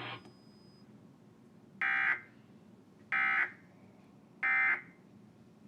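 Emergency Alert System end-of-message code: three short, harsh digital data bursts about a second and a half apart, signalling that the alert message is over.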